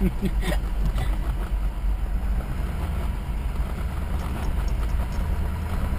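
A truck driving on a dirt trail, heard from inside the cab: a steady low engine and road rumble.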